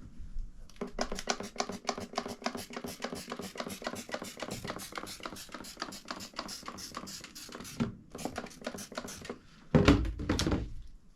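Trigger spray bottle squeezed over and over in a fast, even rhythm, about six sprays a second, wetting the tire with soapy water in a leak check. It ends in a few slower sprays and a louder short rustle near the end.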